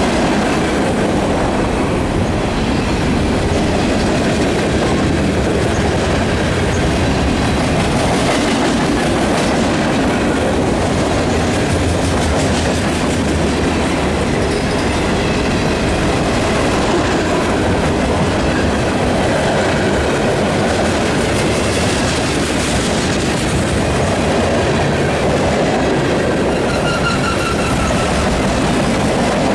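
Freight cars of a long mixed freight train rolling past at steady speed: a continuous rumble of steel wheels on rail with clickety-clack over the rail joints. Faint wheel squeal now and then, most noticeable near the end.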